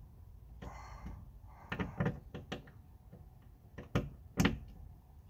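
Socket wrench with an 11 mm socket tightening the rear glass hinge nuts on a Ford Escape liftgate. The ratchet clicks and knocks irregularly, with two louder sharp clicks near the end.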